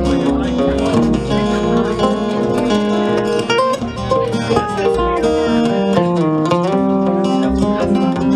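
Live acoustic guitars playing an instrumental break: a picked lead melody with bent, sliding notes over strummed chords.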